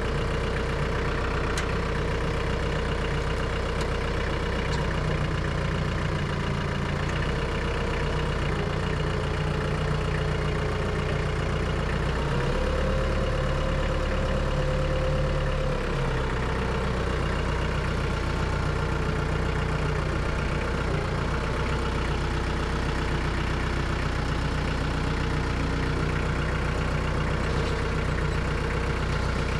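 Branson 3725 compact tractor's diesel engine running steadily after a cold start, heard from the driver's seat. About twelve seconds in the engine note rises slightly and holds for some four seconds before settling back.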